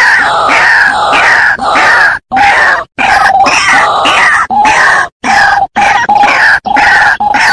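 White-breasted waterhen (dahuk) calling loudly: harsh grunting, croaking notes repeated over and over, cutting out abruptly several times.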